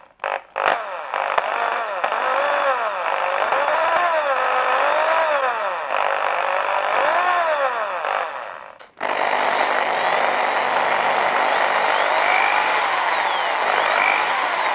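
Bosch CSB 550 RE drill's brushed motor running on worn carbon brushes. It stops and starts briefly, then its whine rises and falls as the trigger is squeezed and eased. About nine seconds in it cuts off and runs again more steadily on a new set of brushes, which feels a lot smoother.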